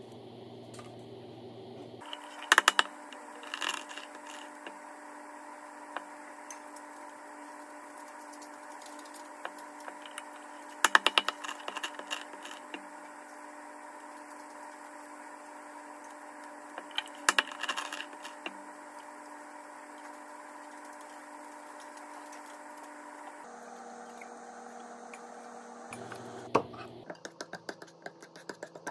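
Hard-boiled eggs being cracked and peeled by hand: short clusters of sharp crackling clicks as the shells break, three times. Near the end a fork starts clicking rapidly against a steel bowl as the eggs are mashed.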